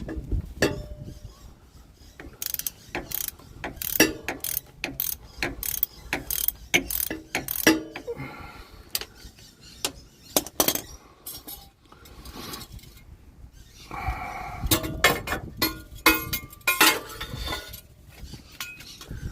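Hand socket ratchet clicking in irregular spurts as bolts are loosened, with metal clanging and ringing knocks from tools against steel.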